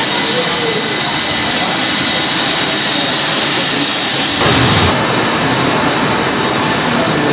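Jet aircraft engine noise with a steady rushing hiss and a faint high whine. About four and a half seconds in there is a sudden louder surge whose low rumble falls in pitch.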